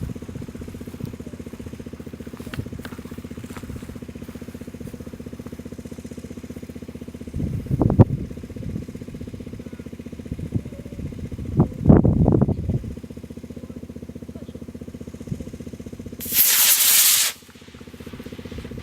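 An engine idles steadily throughout. About eight and twelve seconds in there are two brief, loud low thumps. About sixteen seconds in, the B6-4 model rocket motor ignites with a loud rushing hiss that lasts about a second.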